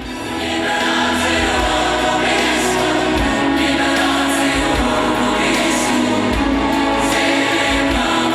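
Music with sustained choral singing, swelling in over the first second and then holding steady.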